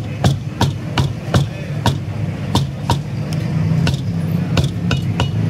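Butcher's cleaver chopping boneless beef on a wooden chopping block: a rapid run of sharp knocks, about two a second, over a steady low hum.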